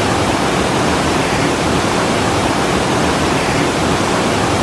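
Loud, steady rush of fast-flowing floodwater.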